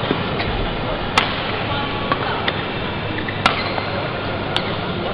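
Badminton rackets striking the shuttlecock during a doubles rally: three sharp cracks, about a second in, past three seconds, and again a second later, over a steady background of arena noise.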